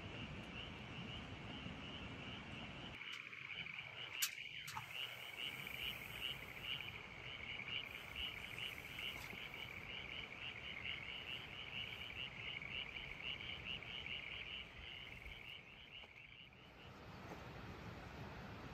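Frogs calling at night, a high, rapid pulsing chorus that stops about seventeen seconds in. A single sharp click sounds about four seconds in.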